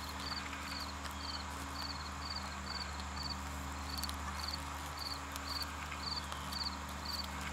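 A cricket chirping steadily, short high chirps about twice a second, over a faint steady low hum.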